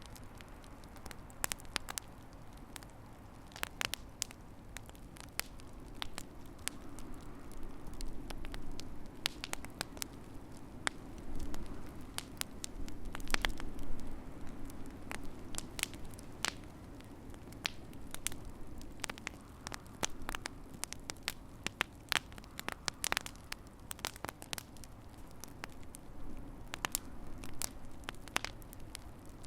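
Wood fire in a fireplace crackling, with irregular sharp pops over a soft low rush of flames that swells for a few seconds in the middle.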